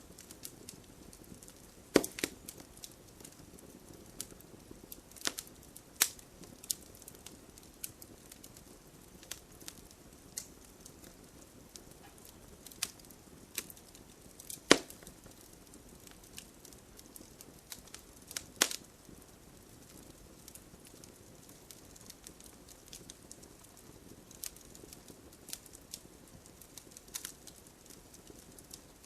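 Fire in a fireplace crackling, with sharp irregular pops over a low steady hiss of the flames; the loudest pops come about two seconds in, near the middle and a few seconds later.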